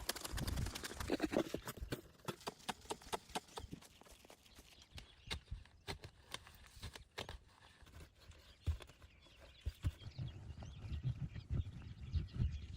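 Irregular sharp cracks and knocks with low thuds, from sticks and forest-floor debris being handled and stepped on. The clatter is busiest in the first two seconds and again near the end, with sparser single cracks in between.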